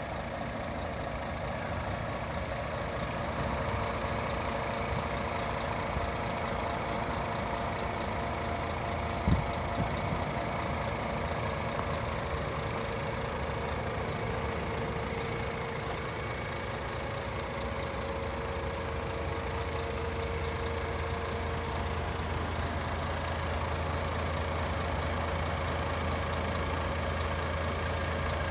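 DAF CF440 tractor unit's Paccar 440 bhp Euro 6 diesel engine idling steadily, with a single sharp knock about nine seconds in. The low hum of the idle grows a little stronger about two-thirds of the way through.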